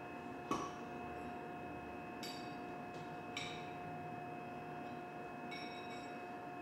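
Steel tools and a steel adapter ring handled on a hard floor: a knock about half a second in, then three short metallic clinks that ring briefly, over a steady faint hum.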